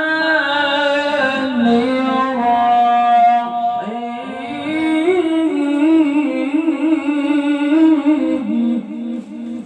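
A male Quran reciter chanting in melodic tilawah style, drawing out long held notes with wavering, ornamented turns of pitch. The phrase trails off near the end.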